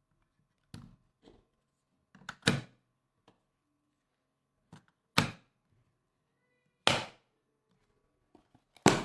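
A series of sharp knocks or thuds, about eight in all, the loudest four coming roughly every one and a half to two seconds, with dead silence between them.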